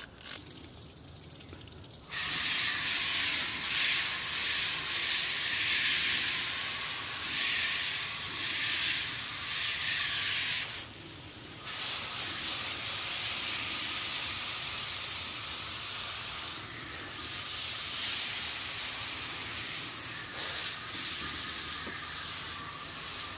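Water hissing from a garden hose spray nozzle as it jets onto an air conditioner's condenser coil fins, rinsing off foaming coil cleaner. The hiss starts suddenly about two seconds in and breaks off briefly near the middle.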